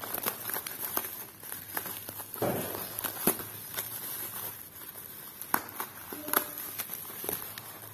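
Plastic packing wrap and tape crinkling and rustling as it is cut and pulled open with scissors, with irregular snips and clicks and a longer rustle about two and a half seconds in.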